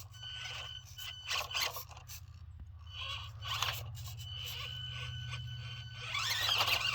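Axial SCX24 Deadbolt RC crawler's small electric motor and drivetrain whining steadily while its Trencher tires scrape and crunch over rock, with the whine rising in pitch near the end as the throttle comes up.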